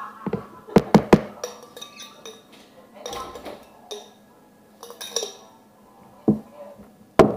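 A spoon knocking against a plastic food tub as fruit is stirred: three quick knocks about a second in, and two sharper ones near the end.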